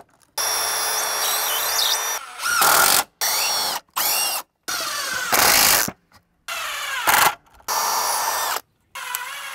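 Milwaukee Fuel cordless drill in a string of short runs, each a motor whine that starts and stops abruptly, as it bores pilot holes and drives screws into cedar boards. A few runs are louder and rougher as the bit or screw bites into the wood.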